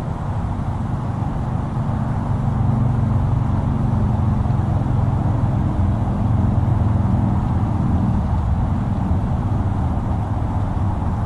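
Low rumble of passing road traffic, building over the first couple of seconds, holding, and easing off near the end.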